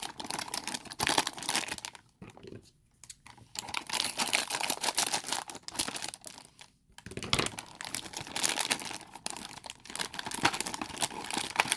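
A blind bag's packaging crinkling and being torn open by hand, in runs of rustling with short pauses between.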